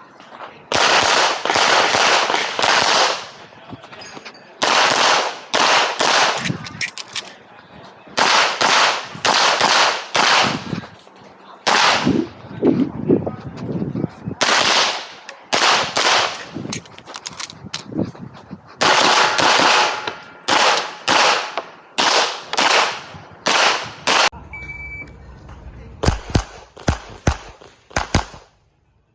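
Handgun shots fired in fast strings and quick pairs, with short pauses between strings, as in a practical-shooting (IPSC) course of fire. A short electronic beep sounds about 25 seconds in, like a shot-timer start signal.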